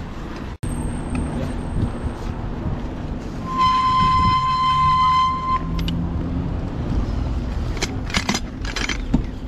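A single horn tone held steady for about two seconds in the middle, over the rumble of a moving bicycle; near the end the bicycle rattles over cobblestones.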